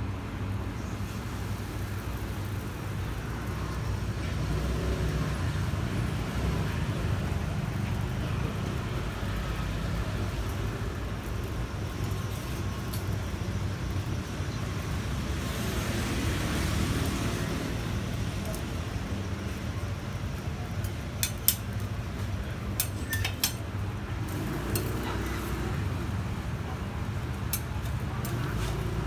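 Street ambience with a steady low traffic rumble and background voices. Roti dough hisses on the oiled flat griddle about halfway through. Near the end come a few sharp clicks of a metal spatula against the griddle.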